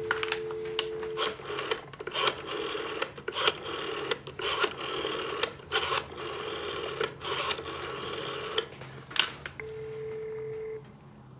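Landline telephone heard through the handset: a steady dial tone for about a second, then a run of clicks and rasps as a number is dialed, then a long ringback beep near the end as the call rings out.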